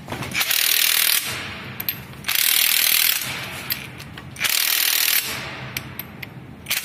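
Cordless power driver with a long socket extension running the bolts that fasten a YaMZ-238 flywheel to its crankshaft. It runs in bursts of about a second, three times, and a fourth burst starts at the very end.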